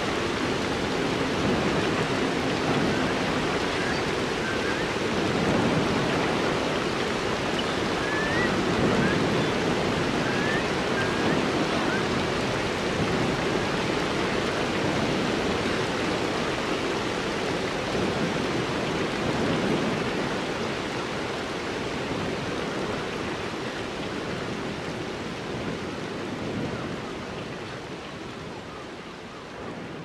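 Steady rushing water from a nature-sounds track of surf and waterfall, with a few short faint bird chirps about a third of the way in. It fades gradually toward the end.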